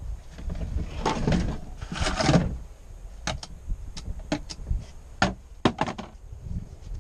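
Chainsaw parts being handled on a car's metal tailgate: two rustling scrapes, then a run of short sharp metallic clicks and taps as the bar, chain and scabbard are moved about.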